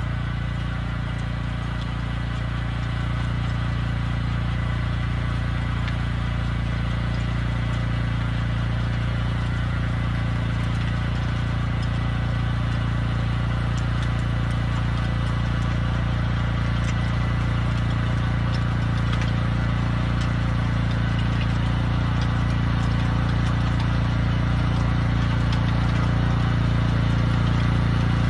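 Walk-behind cultivator (power tiller) engine running steadily under load as it cuts a furrow through the soil, growing gradually louder as the machine comes closer.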